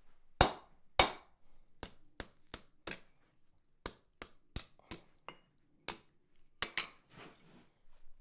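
Hand hammer striking steel flat bar laid over a hardy cutter on the anvil, cutting off short lugs. There are about a dozen sharp blows: the first two are the loudest, and the rest come in quick runs of three or four. A short rattle of metal follows near the end.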